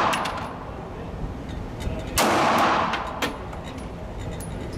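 Gunfire: one loud shot about two seconds in with a long echoing decay, the fading tail of an earlier shot at the start, and fainter sharp cracks in between.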